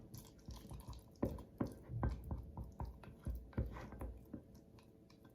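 A spoon stirring a thick, creamy paste in a bowl: soft squelching with irregular light clicks of the spoon, fading out near the end.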